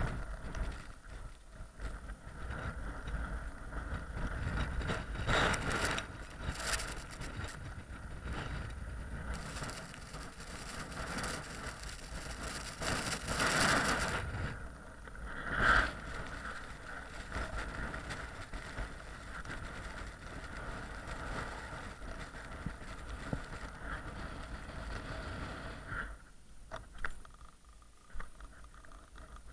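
Strong blizzard wind buffeting the microphone as a steady low rumble, swelling in gusts into a loud hiss, with the strongest gusts about halfway through and a lull near the end.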